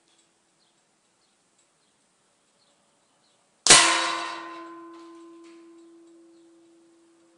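An air-gun pellet striking the paper target and the metal target holder behind it: one sharp clang about three and a half seconds in, with the metal ringing out over about three seconds.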